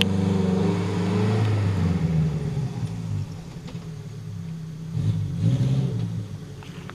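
Suzuki Jimny SJ410's small four-cylinder petrol engine revving under load, its pitch rising and falling. It eases off after about three seconds and picks up briefly again around five seconds in.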